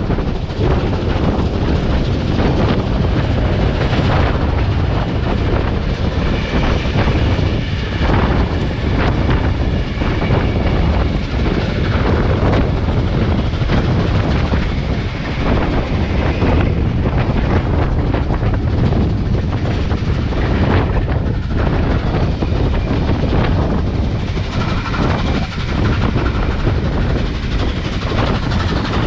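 A steam-hauled passenger train running along the line, its wheels rumbling and clicking over the rails without a break. Thin high tones come and go over the noise, from about six seconds in to about halfway, and again near the end.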